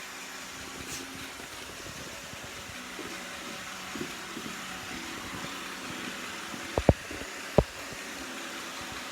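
iRobot Roomba 690 robot vacuum running with a steady hiss. A little after halfway come three short dull thumps: two close together, then one more just after.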